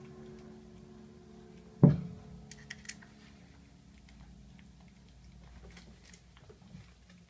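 Yorkshire terrier puppy licking and smacking at wet, mushy puppy food, heard as faint scattered wet clicks and ticks. One loud thump comes about two seconds in, followed by a few sharper clicks.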